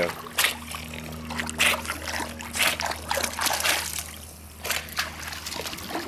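Pool water splashing and sloshing in irregular bursts as a swimming Boston Terrier paddles and then climbs out of the pool.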